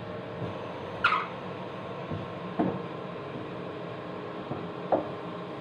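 A cloth wiping the underside of a kitchen range hood, with three short rubbing strokes against the panel, the first the loudest. A steady hum runs under it.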